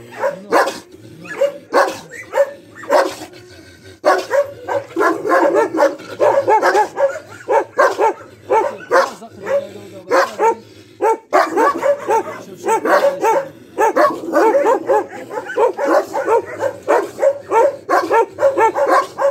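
Kenneled guard dogs barking aggressively at a man provoking them through the mesh door. There are a few barks in the first seconds, then an almost unbroken run of overlapping barks.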